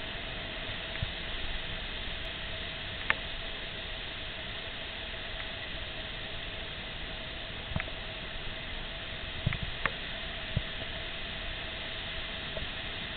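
Steady hiss of ocean surf on a beach, with a faint steady tone under it and a few short clicks as the handheld camera is moved.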